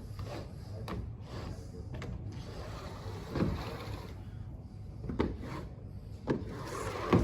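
CanAm corner glazer, a blade head on roller wheels, being run along a plastered internal corner: a steady rubbing, scraping sound of the head on the compound, broken by a few short knocks.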